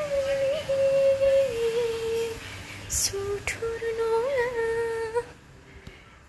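A person humming a slow tune in long, wavering notes, breaking off briefly about two and a half seconds in and stopping about five seconds in. Two sharp clicks come near the middle.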